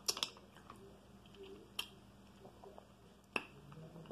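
Sounds of mussels being picked over and eaten by hand: a few sharp clicks, two close together at the start, one a little before the middle and one near the end.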